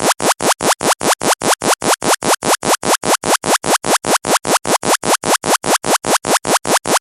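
Electronic sound-check music for a DJ sound-system competition: a fast, even train of loud buzzing pulses, about five a second, each cut off sharply, with no beat or melody changing.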